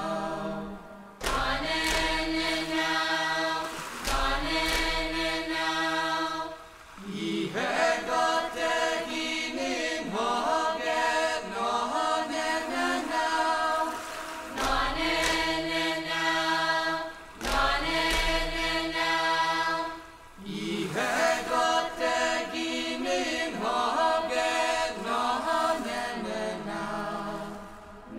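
Traditional Chamorro chant sung by a group of voices in long, held phrases, with short pauses between phrases and a low thump at the start of some of them.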